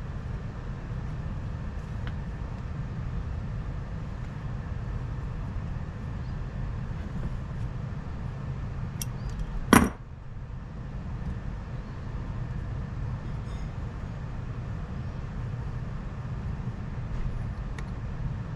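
Hand work with a screw extractor backing a broken screw out of a chainsaw engine case, over a steady low hum. About halfway through comes one sharp metallic clink, the loudest sound, with a few faint ticks of metal tools elsewhere.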